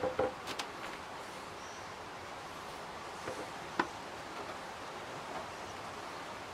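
Steady outdoor background hiss with a few light clicks and knocks from handling a plastic bucket, the sharpest just under four seconds in.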